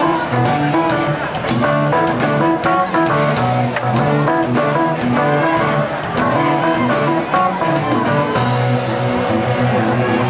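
Live jazz-fusion band playing, with guitar to the fore over keyboard and drums.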